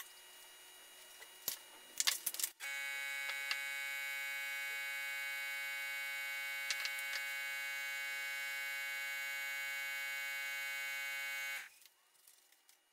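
Steady electric buzz with many overtones, starting abruptly about two and a half seconds in and cutting off sharply about a second before the end. A few sharp clicks come just before it starts.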